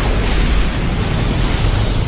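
Anime battle sound effect of a sustained explosion: a loud, continuous blast rumble with a heavy low end and no separate hits.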